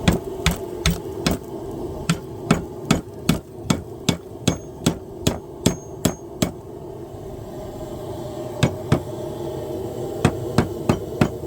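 Hand hammer striking a hot steel tong blank during forging: a quick run of sharp blows, about two or three a second, then a pause of about two seconds and a few more blows near the end.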